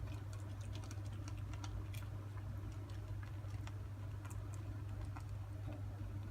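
Two-month-old Scottish Fold kitten feeding: many quick, small clicks from its mouth at the food or water, thick at first and thinning out after a few seconds.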